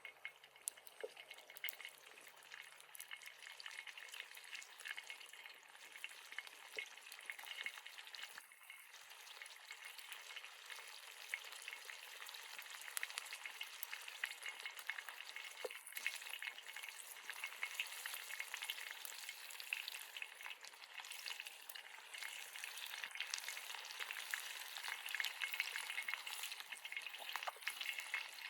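Food frying: a steady sizzle full of small crackles that gradually gets louder.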